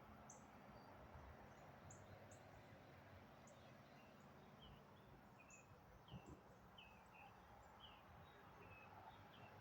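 Faint bird chirps: many short high notes, some falling in pitch, repeating every half second or so over a steady low hum and hiss. A soft low thump about six seconds in.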